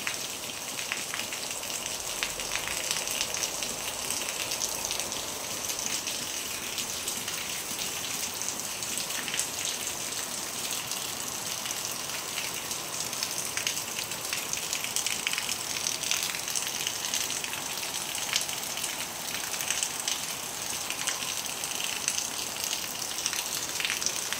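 Heavy rain falling steadily: a dense, even hiss of pouring water with countless small drop impacts ticking through it.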